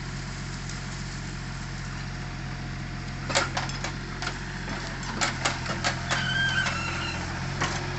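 Excavator's diesel engine running steadily at idle. From about three seconds in, a series of sharp clicks and clanks starts.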